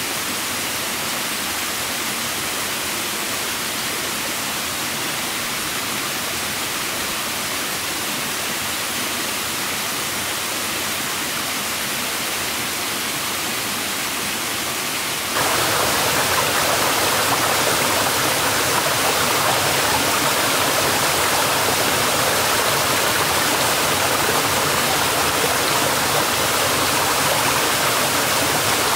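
Steady rushing water, an even noise without a break, that turns suddenly louder and brighter about halfway through.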